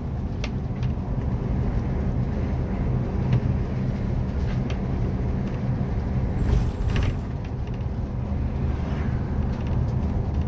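Bus-based camper van driving steadily, heard from the cab: a low, even engine drone with road noise. A brief extra noise about six and a half seconds in.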